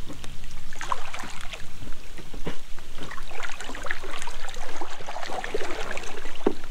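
Water slapping and splashing against plastic kayak hulls, with many small irregular knocks and ticks close by.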